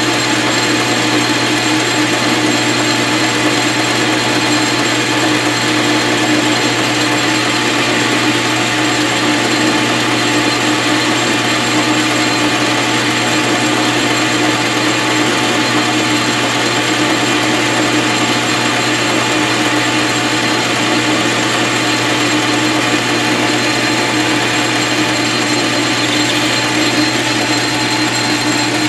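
South Bend 13-inch lathe running steadily while a carbide-insert boring bar takes a light internal cut in the bore of the tailstock ram: a continuous hum with a high whine over the cutting noise. The cut is about 25 thousandths deep, the depth it can take without chattering.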